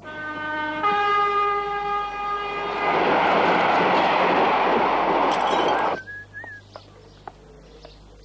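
Steam train whistle blowing on one note and then a higher one, followed by a train rushing past with a loud hissing rush that cuts off suddenly about six seconds in.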